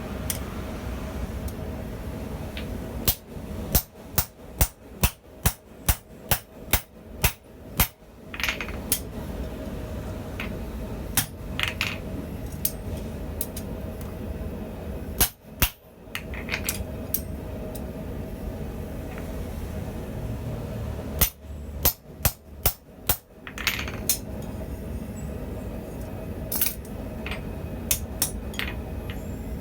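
Hand hammer striking a set of blacksmith's fullering dies to forge hot steel: a quick run of about a dozen blows at roughly two a second, a few single blows, then a second run of about six blows near the end, over a steady low background noise.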